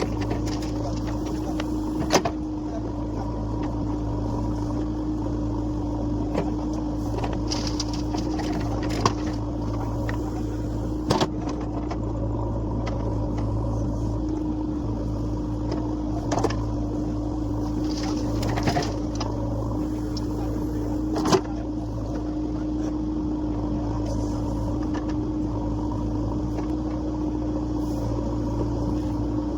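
Heavy diesel engine running steadily at an even speed, with a few sharp knocks scattered through it.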